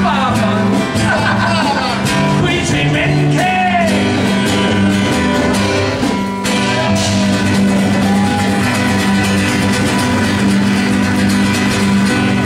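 Live music: acoustic guitars strummed over a steady bass line, with men singing, mostly in the first few seconds.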